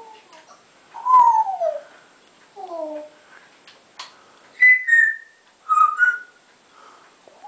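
African grey parrot whistling a string of short notes. The first two glide downward, and the later ones are higher and steadier. A single sharp click comes about four seconds in.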